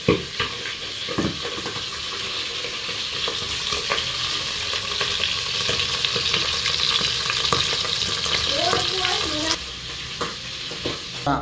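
Field-rat pieces deep-frying in oil in a lidded pan, sizzling steadily and loudest in the middle, with a few sharp knocks.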